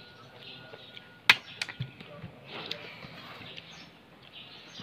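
A sharp clink of tableware against a plate about a second in, followed by a few lighter clicks, over a quiet background.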